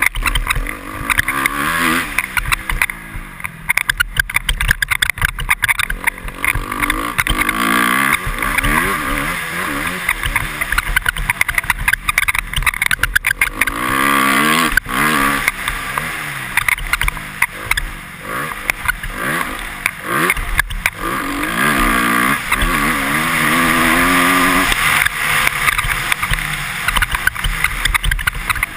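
Honda CRF250R single-cylinder four-stroke motocross engine revving up and falling back again and again as the bike is ridden hard around a dirt track, with short knocks and clicks over the bumps.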